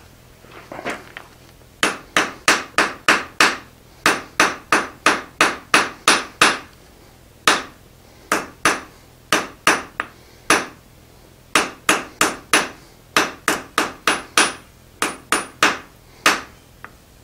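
Blacksmith's hand hammer striking a red-hot square steel bar on the anvil face, drawing it out longer: quick runs of sharp blows, about three a second, broken by short pauses. A few softer knocks come just before the first run.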